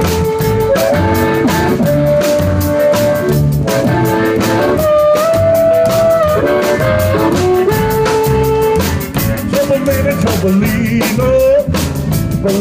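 Live band playing an instrumental intro: an electric guitar carries a melody of held notes over a plucked upright bass and a drum kit keeping a steady beat.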